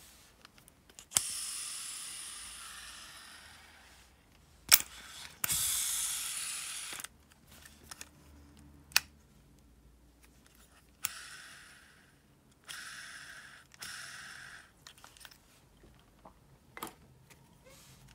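Freshly overhauled Shimano Calcutta Conquest 400 baitcasting reel's spool set spinning freely with the brake off, about five times: each spin is a whir lasting one to three seconds, some fading away as the spool slows, others cut off suddenly. Sharp clicks from the reel mark several of the starts and stops.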